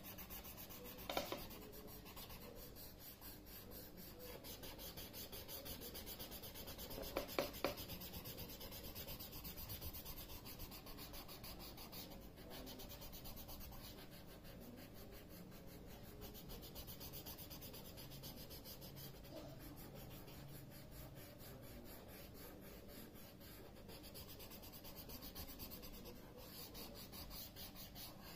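Graphite pencil shading on drawing paper: fast back-and-forth strokes and rubbing, a faint continuous scratchy rasp. Two brief louder taps come about a second in and at around seven and a half seconds.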